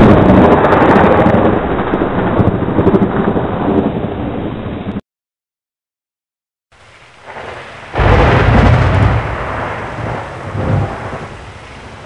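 Two peals of thunder with rain. The first loud rumble cuts off abruptly about five seconds in and is followed by a short silence. Rain comes back, then a second loud thunderclap breaks about eight seconds in and rolls away over the next few seconds.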